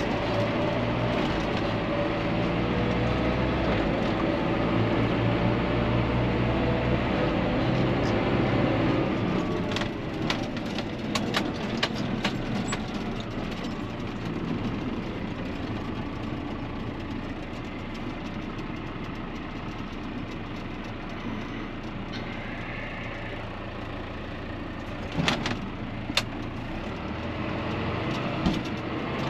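Diesel machinery running while big bags are loaded onto a trailer. An engine revs up and down for the first several seconds, then settles to a steadier hum, with scattered clicks and knocks and two sharp knocks near the end.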